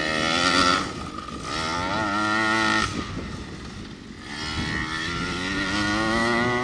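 Primal RC Raminator 1/5-scale monster truck's 49cc two-stroke engine revving in three throttle bursts, its pitch rising and falling with each, with a throaty note.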